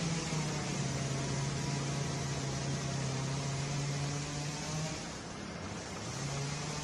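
A motor runs steadily with a low hum over a constant hiss. The hum fades out briefly about five seconds in and returns at a slightly lower pitch.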